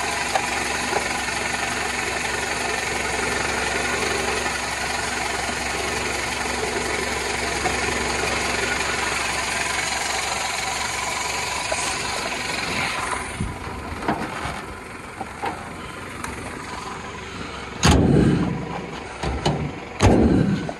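Toyota Camry engine idling with the hood open, steady until about two-thirds through, when it drops lower. Near the end come two loud thumps about two seconds apart as the hood is shut.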